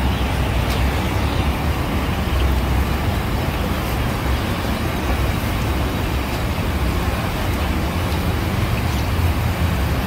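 Steady low rumbling din of a busy market, with no single event standing out.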